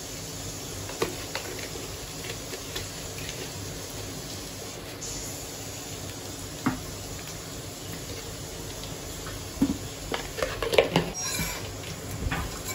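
Light taps and clicks of a spoon scooping coriander powder from a jar into a mixer jar, over a steady faint hiss; near the end a few louder knocks and clatter as a pan is handled.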